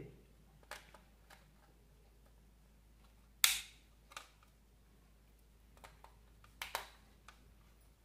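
Scattered sharp plastic clicks and snaps from an electrical switch plate and its wires being handled as old switches are taken out. There are about seven, with the loudest about three and a half seconds in and a quick double click near the end.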